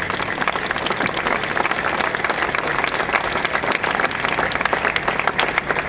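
Crowd applauding steadily, a dense spell of many hands clapping.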